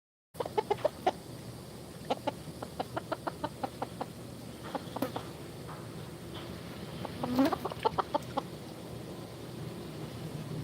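Chickens clucking in runs of short, quick calls, with a louder call that rises in pitch about seven seconds in.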